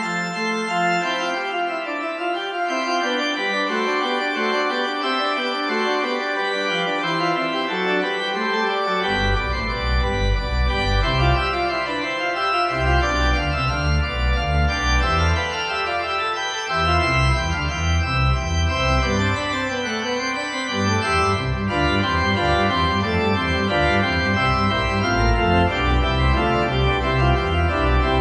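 Organ music: slow sustained chords, with deep bass notes coming in about nine seconds in and holding under the chords for the rest of the passage.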